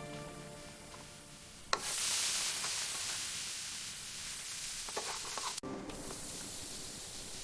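Food sizzling in hot frying oil, a steady hiss that cuts off suddenly about two-thirds of the way through and then starts again. A few held musical notes die away at the very start.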